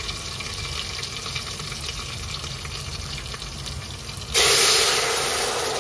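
Sliced onions and whole spices (cinnamon, cardamom, cloves) sizzling quietly in hot ghee; about four seconds in, water is poured into the pot and the hot ghee bursts into a loud hiss that eases off a little.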